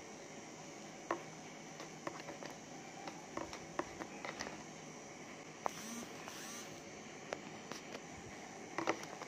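Chopsticks stirring instant noodles in a paper cup: scattered light taps and clicks against the cup, with a brief rustle around six seconds in, over a steady low hum.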